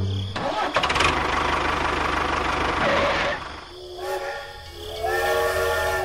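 Steam-train sound effect: a hiss of steam for about three seconds, then a whistle of several tones sounding together, starting about four seconds in and stepping up in pitch a second later.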